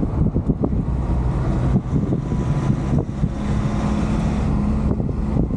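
Cargo truck's engine running and road noise heard from inside the cab while driving, with scattered short clicks and knocks; a steady low engine tone settles in about three seconds in.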